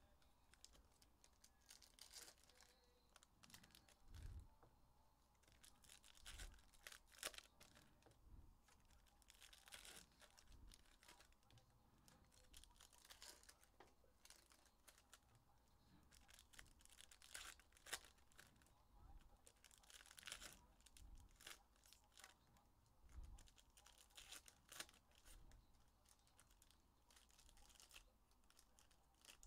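Faint tearing and crinkling of foil trading-card pack wrappers being ripped open, in short scattered bursts, with a few soft knocks as packs and cards are set down on the table.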